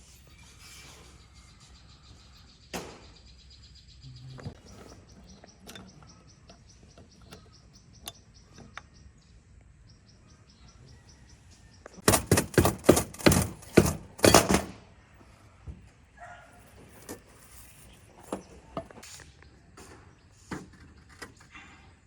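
A quick run of about eight sharp, ringing knocks about halfway through, over a quiet outdoor background with repeated high chirps and a few scattered clicks.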